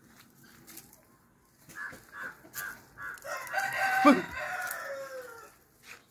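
Domestic turkeys calling: a few short calls about two seconds in, then a longer, louder call of many wavering notes lasting about two seconds.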